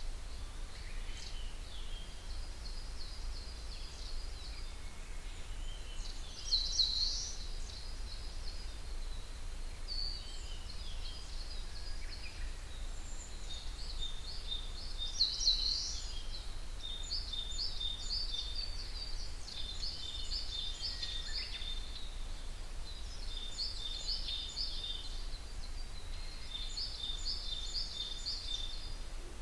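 Several wild songbirds singing together in a forest at dawn: overlapping high, repeated trilled phrases, with two louder calls about 7 and 15 seconds in. A steady low rumble runs underneath.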